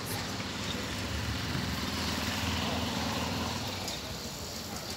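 A motor vehicle's engine running steadily as a low hum, then fading away about three and a half seconds in.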